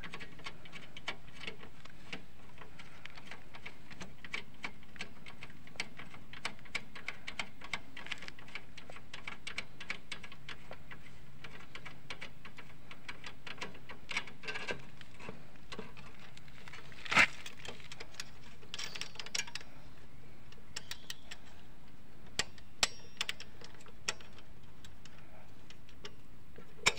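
Scattered light metallic clicks as the rear drum brake's adjuster nut is turned off the threaded brake rod by hand, with one sharper click a little past the middle.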